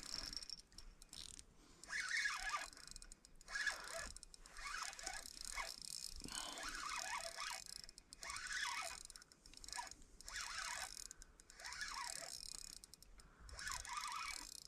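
Fishing reel being cranked in short bursts about every two seconds, its gears clicking and whirring, while a hooked catfish is reeled in.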